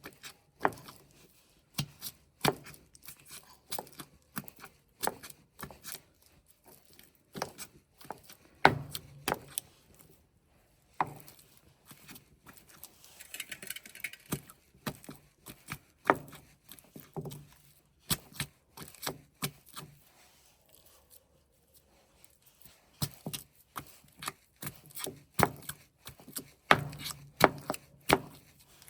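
Knife chopping food on a cutting board: irregular sharp knocks, some in quick runs, with short pauses between.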